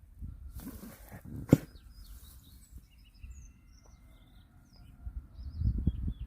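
Sparrows chirping in short scattered calls, with a sharp knock about a second and a half in and a few low thumps near the end.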